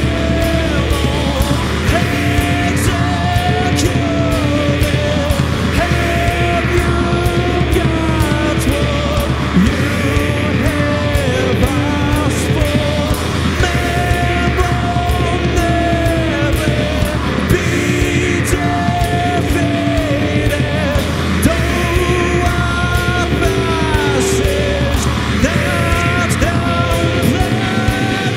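Live rock band playing heavy psychedelic rock: electric guitar, Rickenbacker-style bass guitar and drum kit. A guitar melody with sliding notes repeats in phrases about every two seconds over a steady bass and drums.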